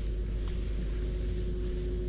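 Steady drone of a small motorcycle engine holding one pitch, under a heavy low rumble of wind.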